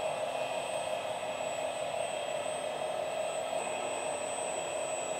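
Electric hydraulic pump of a 1/14 scale RC mobile crane running with a steady whir while the telescopic boom section retracts.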